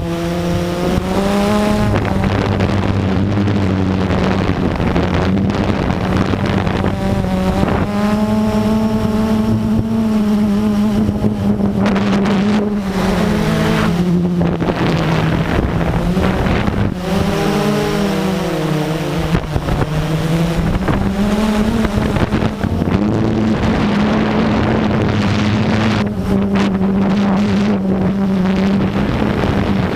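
Blade 350QX quadcopter's four brushless motors and propellers running with a steady buzzing hum, its pitch rising and falling over and over as the throttle changes, with wind on the microphone.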